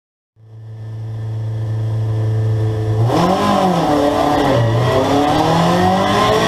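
Race car engine heard from inside the cockpit. It fades in while held at steady revs, then about three seconds in it revs up and pulls away, the pitch climbing and dropping with each upshift.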